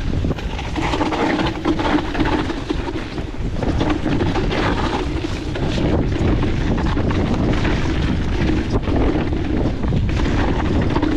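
E-mountain bike's electric drive motor whining steadily under pedalling uphill, with wind buffeting the microphone and a low rumble from the ride.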